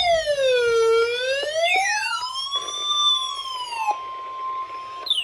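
Electronic siren wailing in slow sweeps, its pitch falling, rising and falling again, with a second, shorter falling sweep crossing it about two seconds in. The wail cuts off about four seconds in, leaving a steady tone, and a new falling sweep starts near the end.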